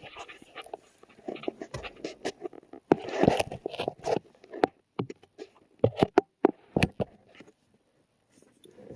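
Plastic interior console trim being handled and fitted around the gear shift: a run of irregular clicks, knocks and rustling, busiest in the middle of the stretch.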